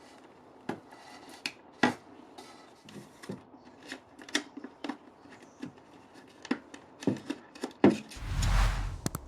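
Small sharp plastic clicks and taps as a wedge-base 7443 brake light bulb and its socket are handled and fitted. Near the end comes a louder rushing rub with a low thump, lasting almost a second.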